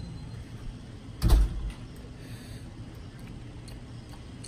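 A single dull thump of handling noise on a handheld phone's microphone about a second in, over a steady low background hum.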